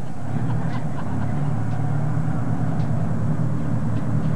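Fishing boat's engine running steadily, a low drone, as the boat moves slowly through the harbour.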